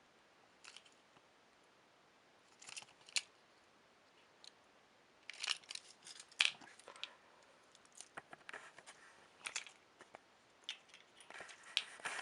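Faint scattered clicks and taps of small plastic-and-metal toy vehicles being handled, in loose clusters with the busiest stretch about halfway through.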